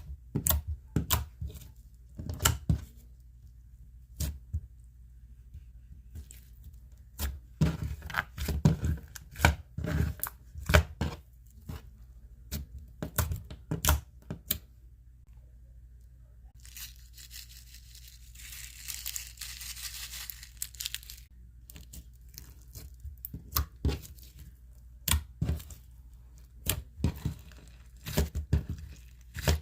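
Clear slime being squeezed and pulled by hand, giving irregular sharp pops and clicks in clusters. About two-thirds of the way through there are a few seconds of continuous hissing crackle.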